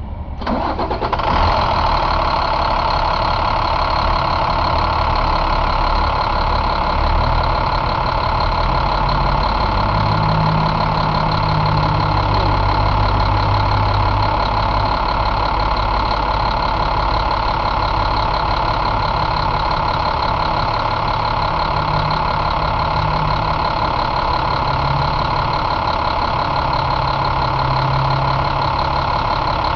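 2010 International MaxxForce DT 7.6-litre inline-six turbo diesel catching about half a second in, then running at a steady idle.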